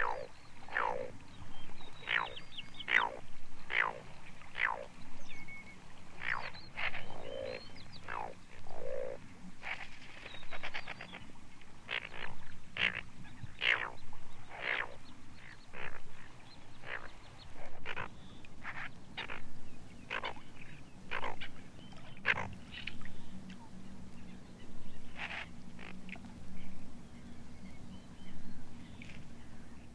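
Asian dowitcher calling over and over, a string of short, sharp calls coming roughly once a second. A faint steady low hum joins about two-thirds of the way through.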